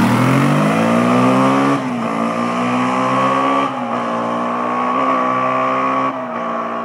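Yamaha Warrior 350 ATV's single-cylinder four-stroke engine accelerating away hard. Its pitch climbs steeply, then dips at each upshift, about two, four and six seconds in, and it grows fainter as it pulls off.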